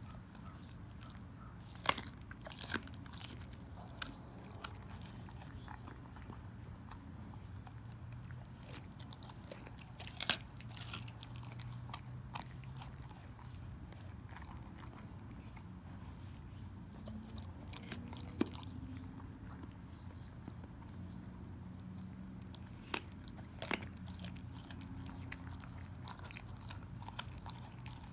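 A dog chewing and gnawing on a raw pork rib, with a few sharp crunches of bone at irregular moments.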